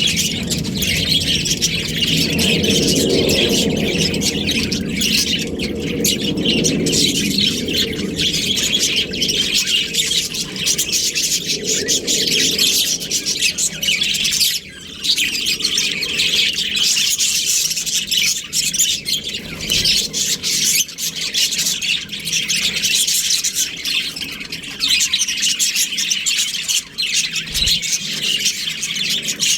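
Budgerigars chirping and chattering without a break, a dense high-pitched warble.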